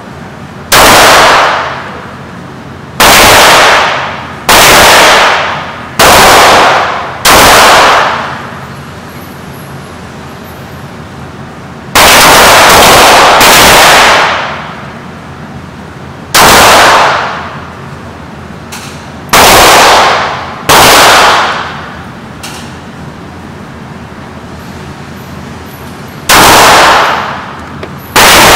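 Glock 19 9mm pistol fired about a dozen times in an indoor range. Each shot is a sharp crack with about a second of ringing echo. The shots come singly, one to three seconds apart, with longer pauses between a few of them.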